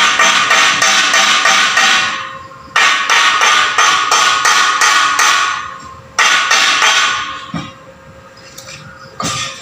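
Hammer striking steel bars rapidly, about five blows a second, in three runs with short pauses between, the metal ringing on and fading after each run.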